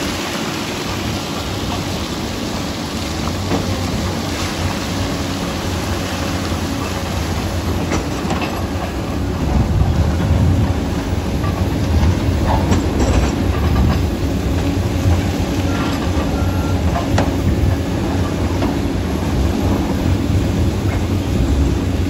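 Komatsu D85EX crawler dozer at work, its diesel engine running steadily under load with the clatter of its steel tracks as it pushes soil and rock with its blade, and scattered knocks throughout.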